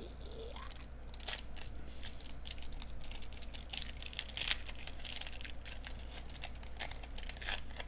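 Foil hockey card pack wrapper being pried and torn open by hand: a long run of irregular sharp crinkling and crackling as the stiff wrapper resists.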